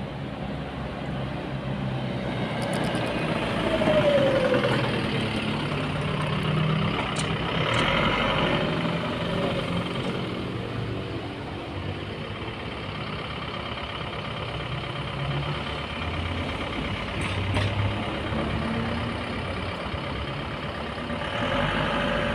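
Road traffic: the steady rumble of vehicles running and passing.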